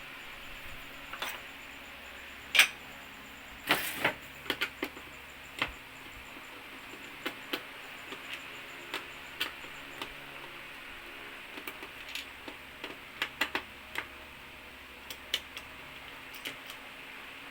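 Scattered small clicks, taps and knocks of screws, hand tools and plastic and metal TV parts being handled during disassembly of an LED TV, with a sharp click about two and a half seconds in and a short scrape just before four seconds.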